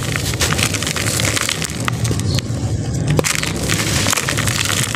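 A packed chunk of dry red sand crushed and crumbled by hand: a dense run of gritty crunches and crackles as it breaks apart into loose sand, over a steady low hum.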